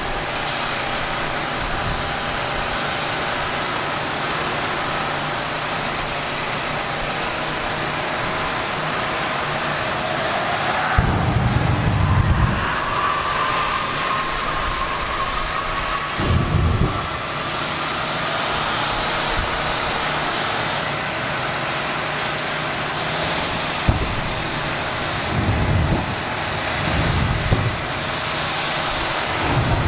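Jet drag car's turbine engine spooling up at the start line, its whine rising steadily in pitch, broken by several short, loud blasts of thrust.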